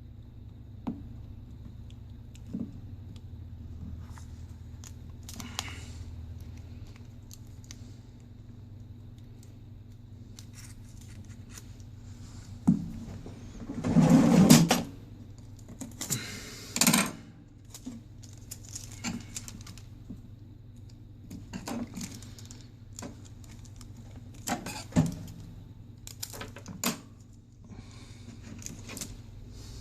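Small clicks and clinks of tools and phone parts being handled on a workbench during phone reassembly, over a steady low hum, with a louder rattling burst of about a second near the middle and a shorter one soon after.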